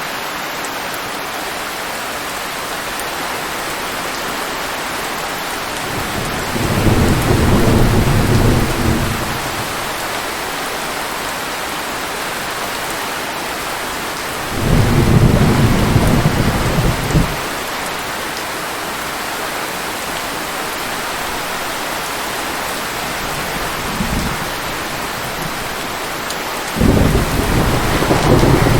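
Steady rain hiss with low thunder rumbling in several times: a long roll about 7 seconds in, another around 15 seconds, a short one near 24 seconds and another starting near the end.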